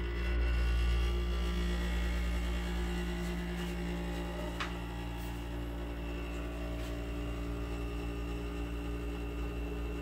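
LG PTAC through-wall air conditioner running in cooling mode after being switched on by a wireless thermostat. It gives a steady electrical hum with an airy fan noise over it, settling slightly quieter over the first few seconds.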